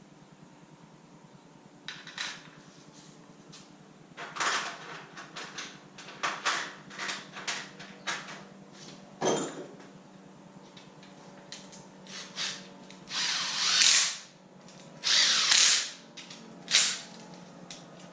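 Knocks and clatter of tools and metal parts being handled, with two longer rasping bursts of about a second each near the end, over a steady low hum.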